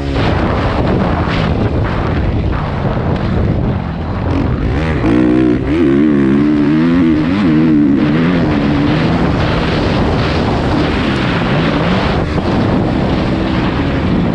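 Dirt bike engine being ridden hard over a motocross track, its pitch rising and falling as the throttle is worked, most clearly in the middle. Wind noise buffets the bike-mounted microphone throughout.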